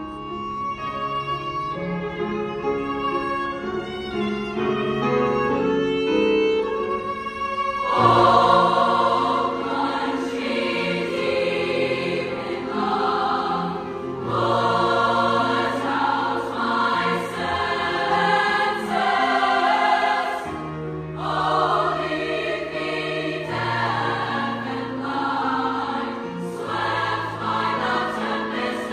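Large upper-voice (SSAA) choir singing with piano and violin accompaniment. For about the first eight seconds the piano and violin carry the music more thinly, then the full choir comes in, louder.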